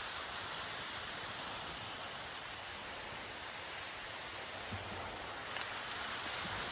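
Steady, even rushing hiss of outdoor background noise with no distinct events, such as distant surf or wind in the trees.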